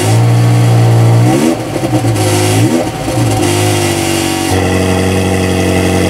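Ferrari F355 Spider's V8 firing up and running loudly at a fast idle just after starting. Two quick blips of the throttle about a second and a half and two and a half seconds in, then a steady idle.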